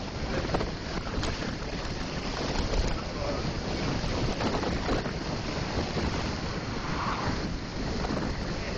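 Wind rushing over the microphone of a bicycle-borne camera coasting fast down a steep grade: a steady, loud rush of noise.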